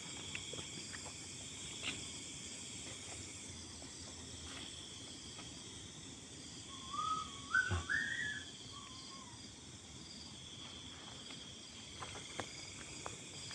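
Night insects, crickets, chirping steadily in high, thin bands. About seven seconds in, a short wavering whistle rises and falls for about two seconds, with a dull thump partway through; a few light clicks come near the end.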